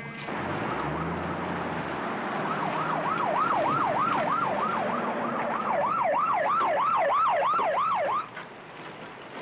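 Emergency-vehicle siren in a fast yelp, its pitch sweeping up and down about three to four times a second, over a steady rushing noise. It starts a couple of seconds in and cuts off suddenly near the end.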